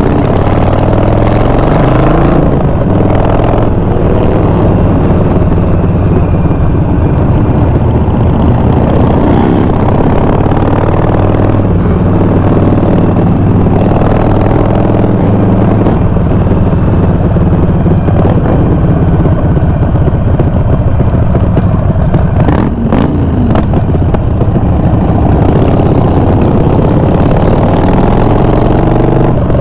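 Harley-Davidson Sportster V-twin motorcycle engine running steadily under way, its pitch rising and falling as it accelerates and shifts, with a rising rev about 22 seconds in.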